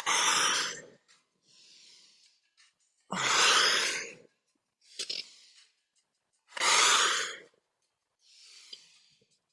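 A person breathing heavily while holding a yoga bow pose: three loud, breathy exhales about three seconds apart, with fainter inhales between them.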